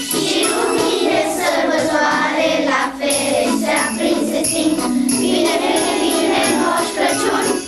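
A group of children singing a Christmas carol together, with jingle bells ringing along.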